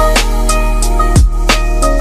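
Background music with a steady beat: deep bass drum hits about once a second, sharp percussion and a sustained melody over a bass line.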